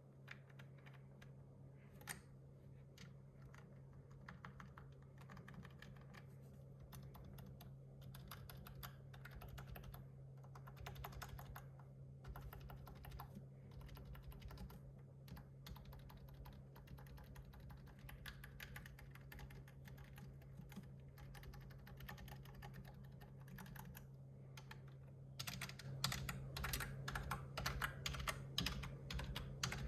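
Typing on a computer keyboard: dense runs of quick key clicks, getting louder and busier near the end, over a steady low hum.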